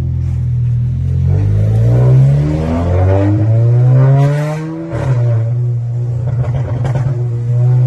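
SEAT Leon Cupra's turbocharged four-cylinder engine heard from inside the cabin, accelerating through the gears. The engine note climbs and drops back at an upshift about two seconds in and again about five seconds in, then holds steady.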